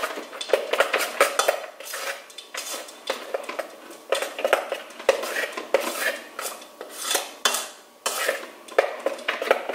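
A utensil scraping and clinking against the bowl of a stand mixer through thick batter, an irregular run of short scrapes and knocks.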